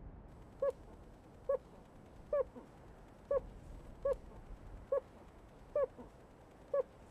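Animated soundtrack effect: eight short, evenly spaced hooting tones, a little under a second apart.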